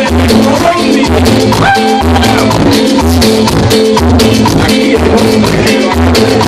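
Live cumbia band playing loudly: accordion, congas and fine shaken percussion over a steady bass beat about once a second, with a man singing into the microphone.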